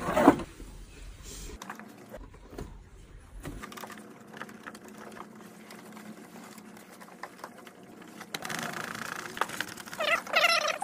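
Paintbrush dabbing and dragging on a painted canvas: soft, irregular scratches and taps.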